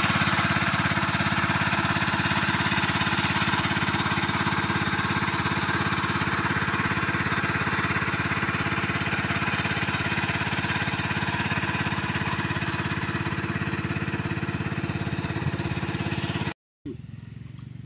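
Small engine-driven water pump running steadily at a constant speed, draining the pond. The sound cuts off abruptly about sixteen and a half seconds in, leaving a much quieter outdoor background.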